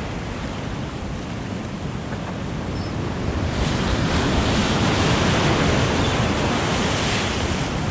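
Ocean surf breaking and washing around concrete jetty pilings, a steady rush of whitewater that swells louder as a bigger wave crashes in about halfway through.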